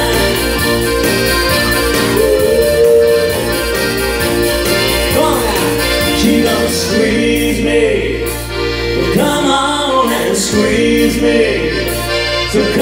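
Piano accordion playing a dance tune over a steady bass line and a regular percussion beat from a backing track.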